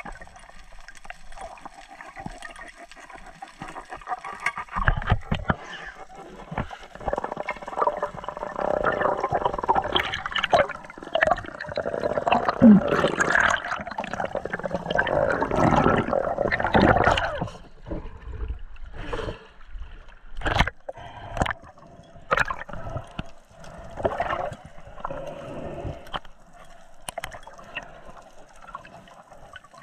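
Underwater sound through a GoPro housing as a freediver swims: water rushing and bubbling, loudest through the middle. After that come several sharp clicks and knocks near the end.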